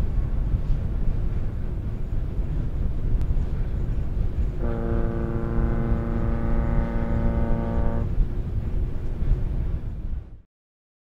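A ship's whistle, fainter than the ferry's own, sounds one prolonged blast of about three seconds in the middle, a fog signal, over a steady low rumble of the ferry underway. The sound cuts out abruptly near the end.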